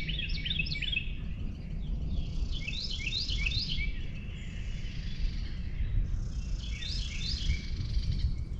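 A bird singing a short phrase of quick chirping notes three times, about every three to four seconds, over a steady low rumble.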